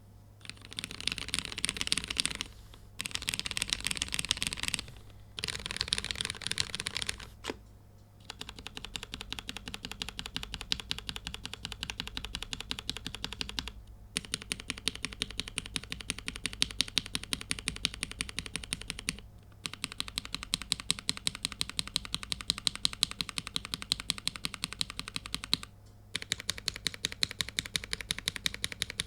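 Typing on a Womier/Gamakay K87 mechanical keyboard fitted with Cherry MX Black Hyperglide linear switches, lubed with Krytox 205g0 and filmed, under POM keycaps. It opens with a few dense flurries of fast keystrokes separated by brief pauses, then settles into a steady, even stream of key presses with a few short breaks.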